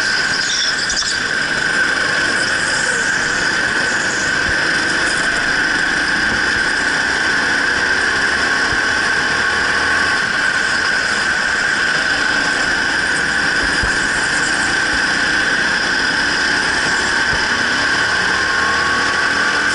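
Racing go-kart running at speed, a loud, steady high whine over its running noise, with a fainter tone that rises near the end.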